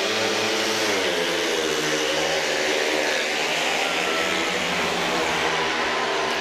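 Four speedway bikes' 500 cc single-cylinder methanol engines at full throttle off the start and into the first bend, several engine notes rising in pitch within the first second and then rising and falling together.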